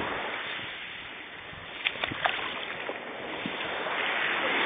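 Sea surf washing on a beach with wind on the microphone, an even rush that dips about a second in and swells again near the end, with a few light clicks about two seconds in.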